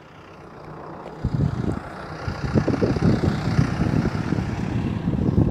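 Wind buffeting a clip-on microphone: an irregular low rumble that rises sharply about a second in and keeps going.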